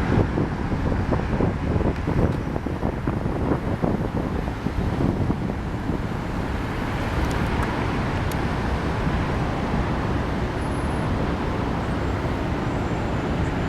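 Fireworks booming in quick succession for about the first five seconds, then thinning out into a steady low rumble of wind and city noise.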